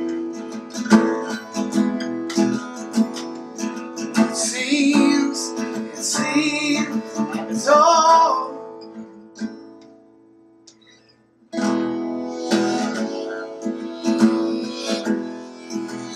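Acoustic guitar strummed in an instrumental break, with a few wordless sung notes in the middle. About ten seconds in the guitar dies away to a short near-silent gap, then the strumming starts again.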